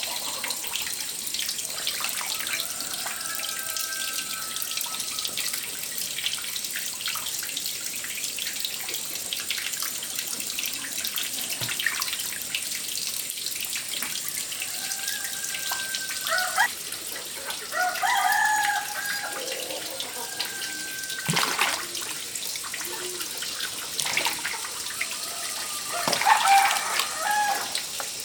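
Water running steadily, with chickens clucking and calling a few times over it, loudest near the end.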